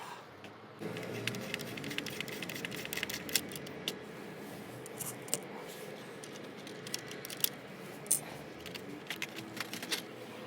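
Irregular small clicks and light rattles of hard parts being handled, as when taking apart a laptop, over a steady low background hum that starts about a second in.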